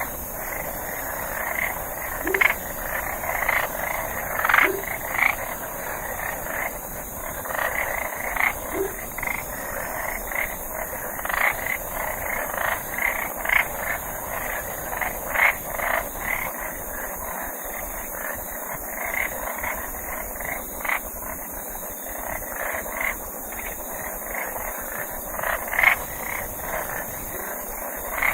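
Chorus of frogs croaking, many short calls overlapping at an uneven pace, over a steady high hiss.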